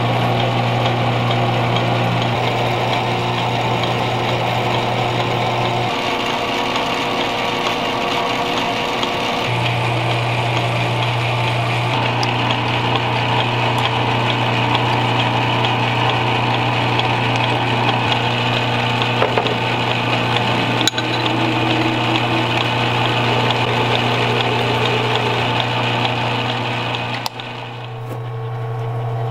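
Metal lathe running with a steady motor hum while a piece of quarter-inch soft steel bolt is machined in its chuck.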